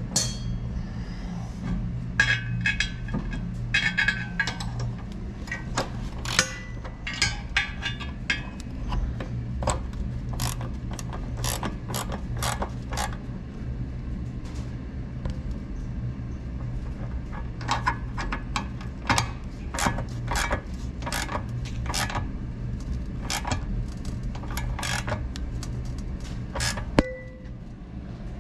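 Hand tools clicking and clinking against steel in irregular clusters as a bolt-on rear frame section is test-fitted, over a steady low hum.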